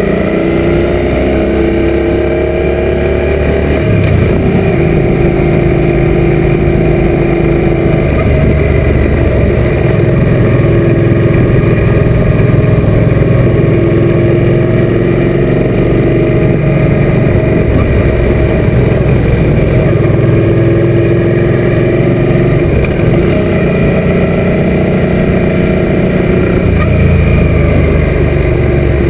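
Suzuki M800 V-twin engine running at road speed with wind rush over the microphone, its pitch climbing several times as the bike accelerates.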